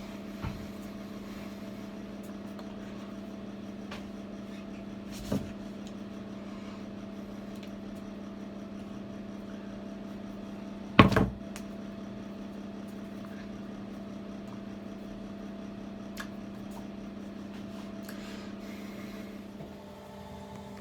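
Samsung washing machine running with a steady electric hum. A few knocks sound over it, the loudest about halfway through, and the hum changes shortly before the end.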